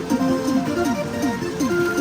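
Music with plucked-string sounds and a quick, steady run of short falling notes, about four or five a second.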